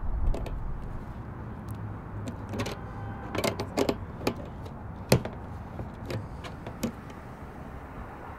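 Hands and channel-lock pliers working a metal bulkhead fitting on a plastic water jerry can: scattered clicks and knocks, the sharpest about five seconds in, over a low steady rumble.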